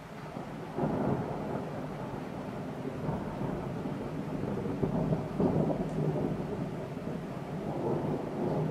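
Thunder rolling through steady rain, rising sharply about a second in and swelling again several times.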